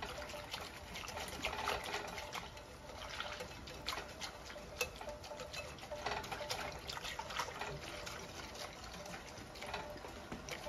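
Wire whisk mixing masa harina (corn flour) into water in a glass bowl: a wet swishing, with many irregular light clicks of the wires against the glass.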